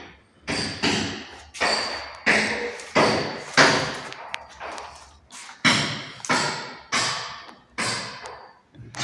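A series of about a dozen sharp thuds, roughly one every two-thirds of a second with a short pause near the middle, each ringing briefly in a bare, echoing room.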